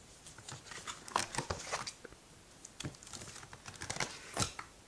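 Plastic pocket pages of a trading card binder crinkling and rustling as a page is turned: a run of irregular crackles and ticks, the sharpest near the end.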